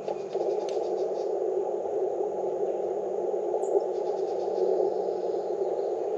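Icom IC-705 transceiver's receiver hiss heard through a narrow CW filter: steady band noise with no Morse signal on it, while the radio is between bands. A few faint ticks sit on top.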